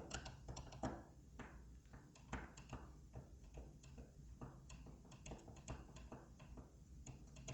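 Faint, irregular clicks and light scrapes of a hand screwdriver turning a long screw out of a smart door lock.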